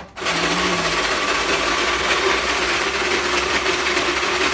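Electric kitchen appliance motor running steadily while grinding ice into shaved ice. It is loud, and it starts and cuts off abruptly.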